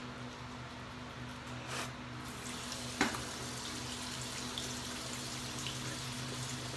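A toothbrush scrubbing faintly, then a bathroom sink tap running steadily from a little over two seconds in, with a sharp click about a second later.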